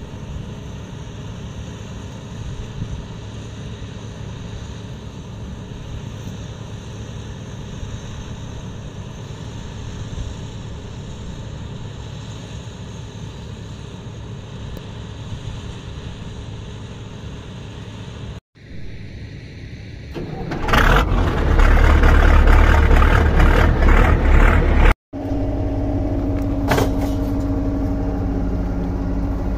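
Heavy diesel engines running steadily with a low rumble. After a cut about two-thirds in there are a few seconds of much louder, rougher engine noise. After another cut an engine idles with a steady hum.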